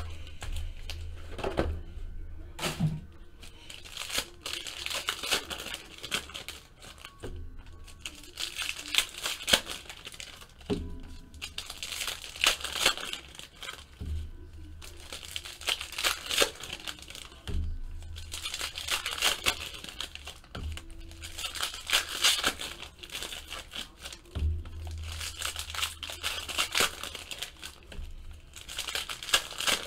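Foil trading-card packs being torn open and crinkled by hand, in repeated bursts of rustling every second or two, over background music.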